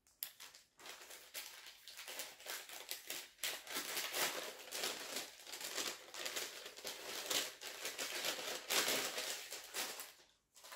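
A brown kraft-paper gift bag crinkling and rustling in irregular bursts as it is opened and rummaged through. It is loudest about four seconds in and again near nine seconds.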